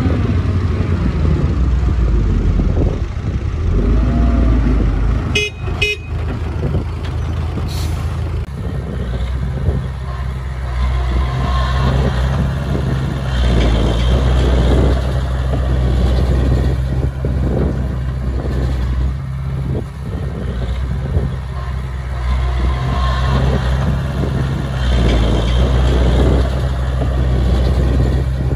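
Small crawler bulldozer's diesel engine running as the dozer pushes soil, its note shifting up and down every few seconds with the load. Two short sharp clicks about five and a half seconds in.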